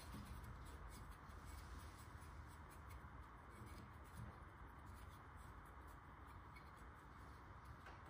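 Near silence: faint rubbing and small clicks of hands handling the plastic parts of a spray drone's arm lock mechanism, over a steady faint hiss.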